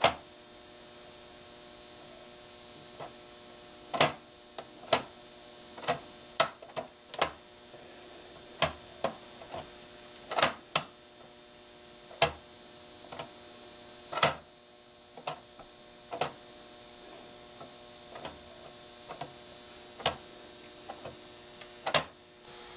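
Woodland Scenics Dust Dabber cleaning putty being pressed onto and pulled off a plastic model building roof, giving a couple dozen irregular sharp clicks and sticky pops. A steady electrical hum runs underneath.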